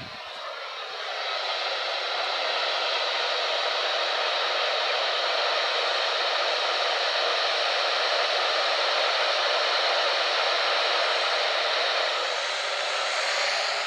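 Radio static: a steady hiss from a receiver picking up no clear signal, swelling over the first couple of seconds and then holding steady.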